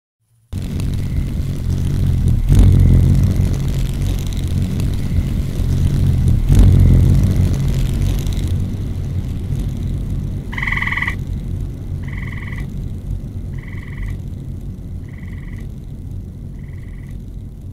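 Sound-art audio: a deep rumbling noise starts suddenly, swells twice and slowly fades. Later a short two-pitched beep begins, repeating about every one and a half seconds and growing fainter with each repeat, like an echo dying away.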